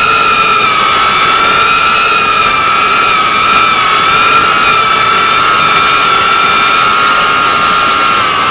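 FPV drone's brushless motors and propellers whining loudly and steadily, heard close up through the onboard camera's microphone, the pitch wavering slightly with the throttle.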